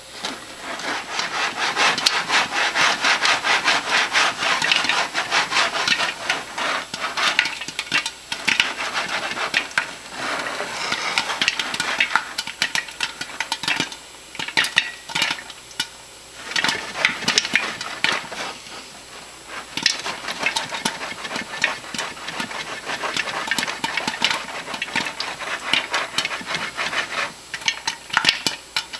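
Popcorn kernels popping in a lidded pan on the stovetop: a dense, rapid run of pops with a few brief lulls about midway.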